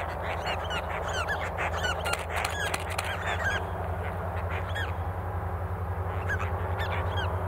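Birds calling in quick, curved chirps, busiest in the first half and again near the end, over the steady low drone of approaching diesel locomotives hauling a cattle train. The drone grows slightly louder toward the end.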